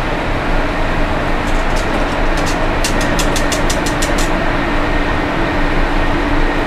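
Steady loud rush of a commercial kitchen's ventilation running, with a faint hum. About a second and a half in comes a quick run of light metallic clicks, about six a second at its densest, lasting nearly three seconds: a wire whisk striking the sides of an aluminium pot while stirring polenta.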